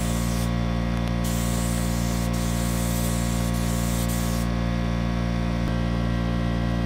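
Air-powered paint spray gun hissing in several spurts as the trigger is squeezed and released while painting a car's side panel, the hiss stopping about two-thirds of the way through. A steady machine hum runs underneath.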